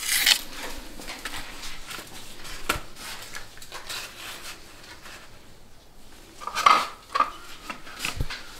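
Light handling sounds of jewelry, a paper display card and a small cardboard box being set out by a gloved hand: scattered small clicks and taps, with a louder clatter a little past six seconds in.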